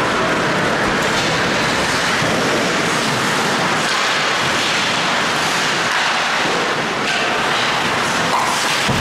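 Ice hockey skate blades scraping and carving on the ice during play, heard as a loud, steady hiss.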